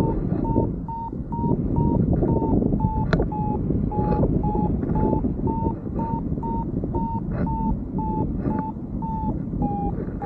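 A paragliding variometer beeps its climb tone, about two to three short beeps a second, the pitch drifting slightly up and then down, over loud wind rushing across the microphone. The beeping is the sign that the glider is climbing in lift.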